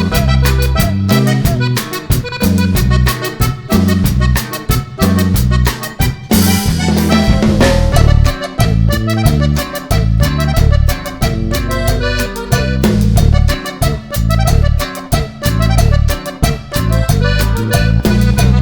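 Upbeat background music with a steady beat, led by an accordion-like reed instrument over bass and drums.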